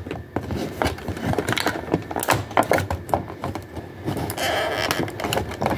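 Glass gel nail polish bottles and their clear plastic tray being handled: a run of small clicks and taps, with a short scraping sound about four and a half seconds in as a bottle's cap is twisted.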